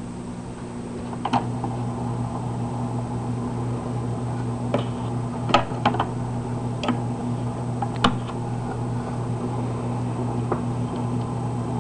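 Early-1950s Firestone portable vacuum-tube record player humming steadily through its speaker, with scattered sharp clicks and pops every second or so.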